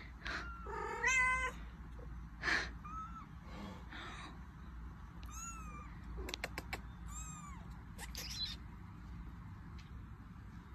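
A mother cat and her kitten meowing: a lower meow about a second in, then a run of short, high-pitched mews that fall in pitch, with a few sharp clicks around the middle.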